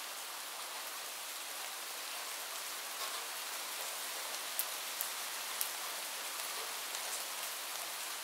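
Steady rain falling, with a few sharper drop ticks standing out around the middle.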